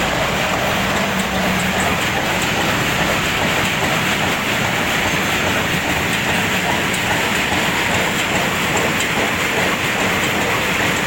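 Two-deck peanut sorting machine running steadily under test, making a dense, even mechanical clatter.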